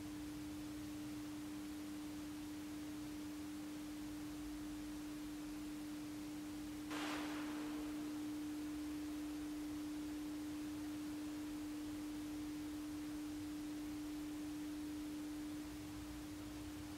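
A steady, unwavering pure tone, like a held sine-wave drone, with a fainter lower tone beneath it for the first half. About seven seconds in, a soft burst of hiss rises and fades over about a second.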